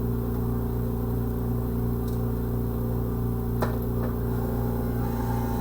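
Dental amalgamator shaking an amalgam capsule to triturate it, a steady mechanical hum, with one sharp click a little past halfway.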